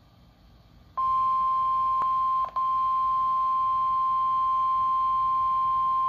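National Weather Service warning alarm tone (the 1050 Hz NOAA Weather Radio alert tone) sounding through a Midland weather alert radio's speaker: one steady, unbroken high beep that starts about a second in, drops out for a split second once, and carries on. It is the tone sent during the Required Weekly Test that switches on alert receivers.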